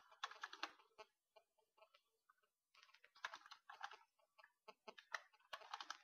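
Faint typing on a computer keyboard: quick runs of keystrokes with brief pauses between them.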